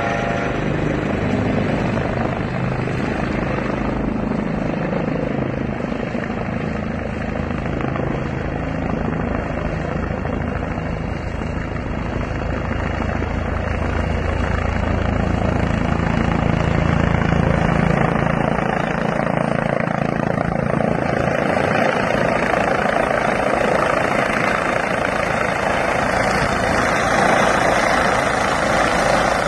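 Eurocopter EC135 T2 twin-turbine helicopter coming in to land: steady rotor and turbine noise, getting somewhat louder and brighter in the second half.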